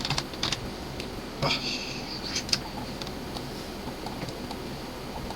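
A few sharp clicks of a computer keyboard and mouse, a couple in the first half second and two more about two and a half seconds in. A brief high squeak comes at about a second and a half, over a steady low room hum.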